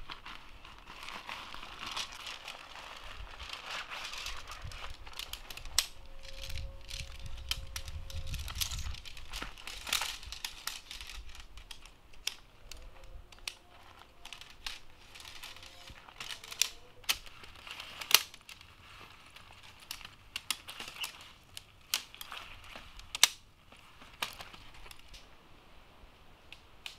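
Nylon tent fabric rustling and crinkling as it is handled and spread out, then a series of sharp clicks and clacks as the tent pole sections are knocked and snapped together.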